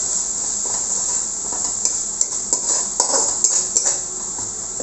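Ginger-garlic paste masala sizzling steadily in an aluminium kadai as it is fried, while a spatula scrapes and taps against the pan in irregular strokes.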